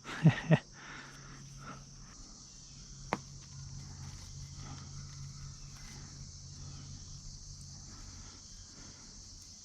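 Steady high-pitched chorus of crickets or similar insects, with a low steady hum underneath, faint rustling, and a single sharp click about three seconds in.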